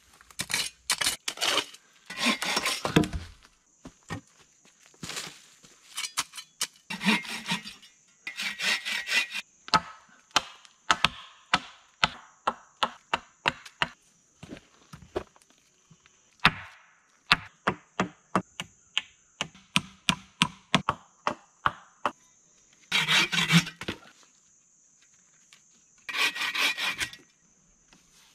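Hand tools working wood: runs of sharp wooden knocks, about two or three a second through the middle, broken by short spells of rasping handsaw strokes.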